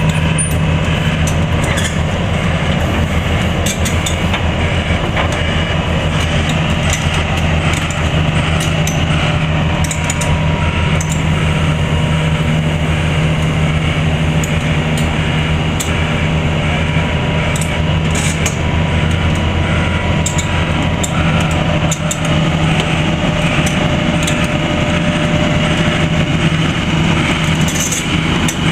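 Heavy diesel engine of demolition machinery running steadily at a constant pitch, with a thin steady whine above it and scattered light knocks.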